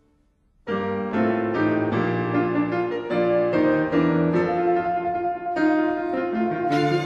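Background music: after a brief near silence, piano music begins about two-thirds of a second in, a steady run of struck notes.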